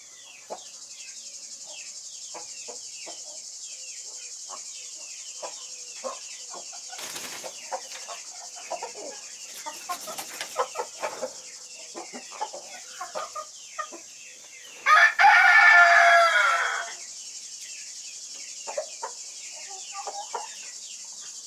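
Spanish White Face chickens clucking and chirping steadily. About fifteen seconds in, a rooster crows once for about two seconds, the loudest sound.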